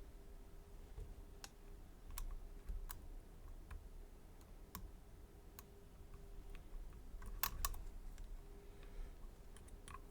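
Faint, scattered metallic clicks from a lock pick and tension wrench working the pins of a Mul-T-Lock Garrison padlock, with a slightly louder pair of clicks about three quarters of the way through.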